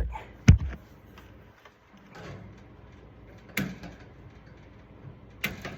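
Wire strippers cutting and stripping electrical wires in a light fixture: a sharp snip about half a second in, then two fainter clicks later on.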